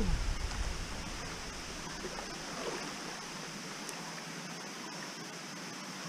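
Steady rushing of flowing water from a waterfall and its stream, an even hiss.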